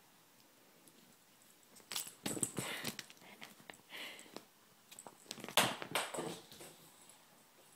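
Close rustling of couch fabric with light knocks, in two bursts, about two seconds in and a louder one about five and a half seconds in, as the cat's toy is picked up and thrown.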